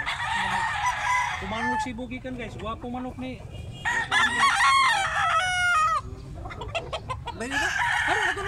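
Gamecock roosters crowing: a crow at the start, a louder one lasting about two seconds in the middle that ends in falling notes, and another near the end.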